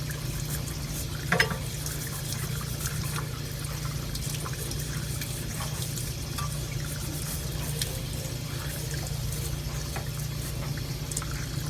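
Brush scrubbing rust off a bike frame: a steady scratchy, crackling noise of many small ticks over a low hum, with one sharp knock about a second and a half in.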